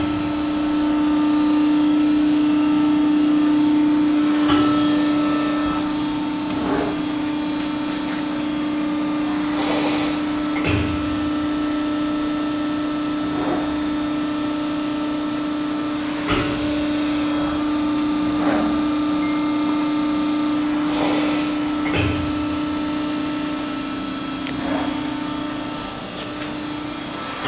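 The hydraulic pump of a 240-ton Fab-Line Baykal CNC press brake running with a steady hum. Short clunks come every few seconds, and the machine sounds healthy.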